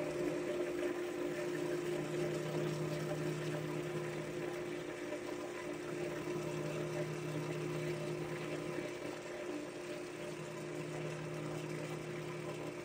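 Wood lathe running steadily with a constant motor hum, while sandpaper is held against a spinning ebony blank to smooth it.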